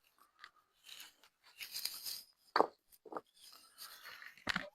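Wooden handle stock being handled on the bench: scattered scrapes and rustles, with two sharp wooden knocks a little past halfway and a dull thump near the end.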